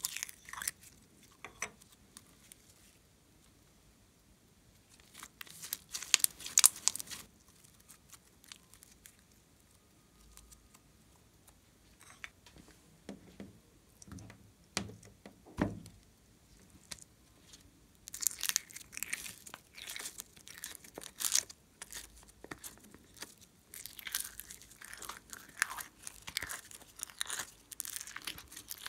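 Crinkly, crackling handling sounds of slime and a plastic piping bag of clay: a short burst of crackling, a few soft thumps, then nearly continuous crunchy crackling over the last ten seconds as crunchy glitter slime is squeezed and scooped from a tray.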